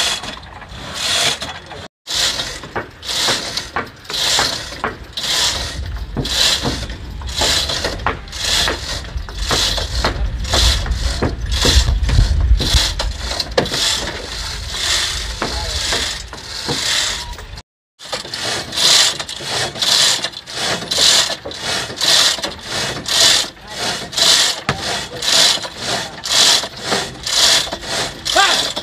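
Manual chain hoists being worked to haul a large wooden ship's hull: chain rattling and the ratchet clicking in a steady rhythm of about two strokes a second.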